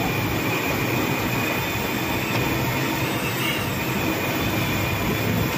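Steady sizzling of sabudana vadas deep-frying in hot oil in an iron kadhai, with a low, even rumble beneath it.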